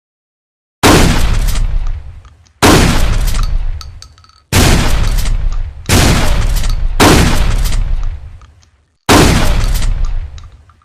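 Trench shotgun firing six shots, each a loud blast with a long echoing tail, spaced about one to two seconds apart.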